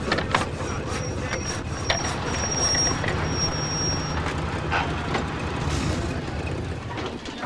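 Old convertible's engine running with a steady low rumble as the car rolls by. A few sharp knocks sound over it, and a thin high whistle comes and goes in the first half.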